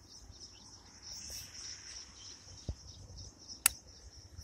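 Steady high-pitched insect chorus, with a single sharp click about three and a half seconds in.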